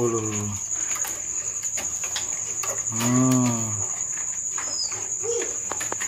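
A steady high insect trill, like a cricket, runs throughout. Over it come two drawn-out, wordless low vocal sounds from a man, one at the start and one about three seconds in.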